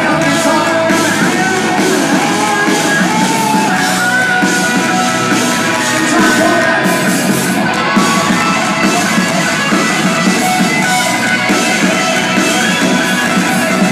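Pop-rock band playing loud with a singing voice over guitars and drums.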